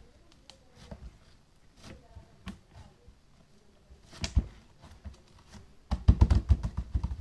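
Slime being squeezed and pressed by hand, giving scattered soft clicks and pops, one louder pop about four seconds in, then a quick run of loud crackling pops near the end as air pockets burst.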